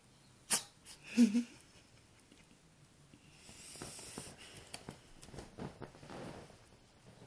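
Cat sneezing, loudest just after a second in, with a short sharp sound just before it. Quieter breathing noises and small clicks follow.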